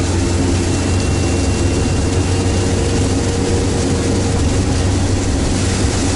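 Diesel engine of an amphibious all-terrain vehicle running steadily under load, heard inside the cab, with the rush of the water it is wading through.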